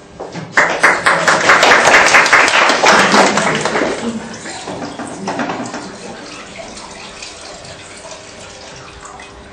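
Audience applauding, starting about half a second in, loudest for the next three seconds, then dying away.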